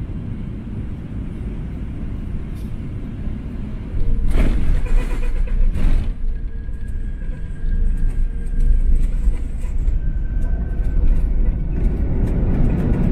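Inside the cabin of an ANA Airbus A380, a steady low rumble from the airliner, then about four seconds in a sudden jump to a louder rumble with a couple of heavy thuds as the wheels touch down on the runway. A heavier rolling rumble follows with a faint steady whine and light cabin rattles toward the end.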